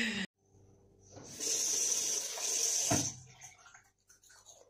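A bathroom tap runs water into the sink for about two seconds, then is turned off with a click.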